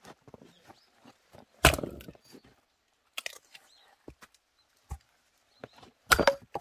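Axe blows splitting firewood: two heavy chops about four seconds apart, each with a short splintering crack, and a lighter knock of wood between them.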